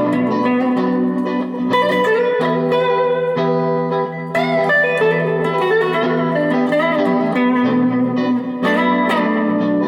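Electric guitar played through a 1977 Fender Bassman 70 tube amp in a loose jam: ringing chords and single notes with several string bends, a new phrase every second or few.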